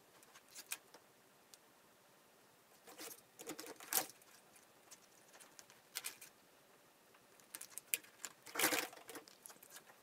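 Faint scattered clicks, taps and scratches of small electronic parts and wires being handled on a tabletop, in short clusters near the start, around three to four seconds in, at six seconds, and again near the end.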